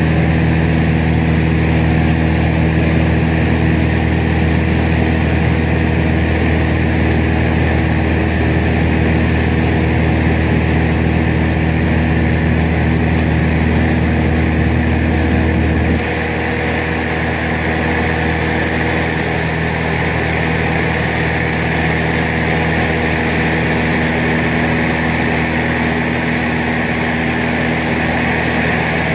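Small propeller plane's engine and propeller droning steadily, heard from inside the cabin in cruise. The low rumble drops a little in level about halfway through.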